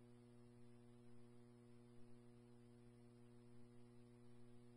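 Near silence on a police scanner feed between radio transmissions: only a faint steady hum and hiss.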